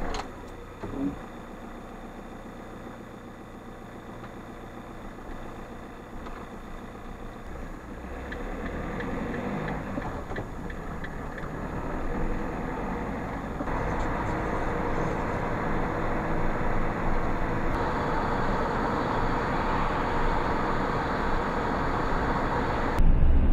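A camper van driving, heard from inside the cab: a low engine hum that grows into louder engine and road noise as the van gets up to speed. The sound jumps abruptly twice, where the footage is cut.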